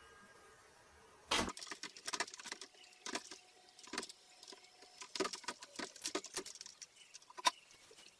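Light clinking and clattering of equipment being handled: a string of irregular sharp clicks and knocks starting about a second in, some with a short ring.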